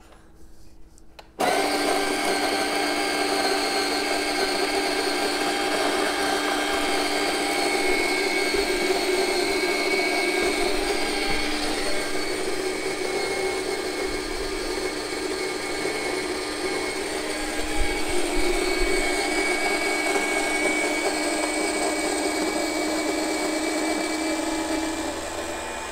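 Fellow Opus 40 mm conical burr grinder starting up about a second and a half in and running steadily, grinding a 16 g dose of coffee beans fine for espresso. The sound eases near the end as the dose finishes grinding.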